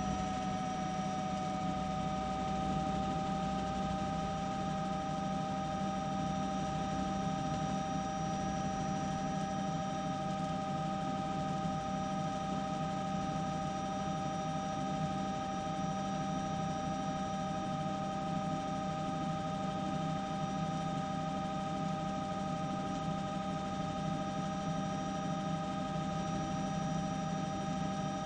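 Steady drone and constant whine of a helicopter's engine and rotor system, heard from on board.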